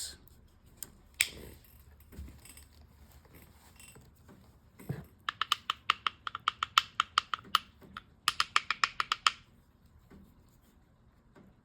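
Hard rock slabs clicking and clinking against each other as they are handled: a few single knocks, then two runs of quick, evenly spaced ringing clicks, several a second.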